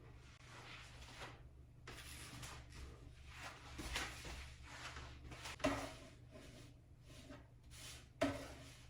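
Quiet kitchen handling noises, with rustling and two sharp knocks, one about five and a half seconds in and one near the end, over a steady low hum.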